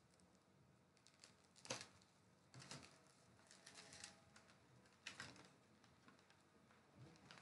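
Faint, scattered clicks and crinkles of packaging being handled as a small boxed USB audio adapter is opened.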